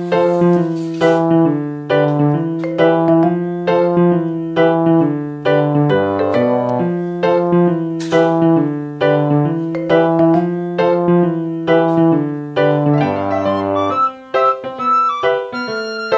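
Background piano music: a steady pattern of notes, about two a second, over held low notes.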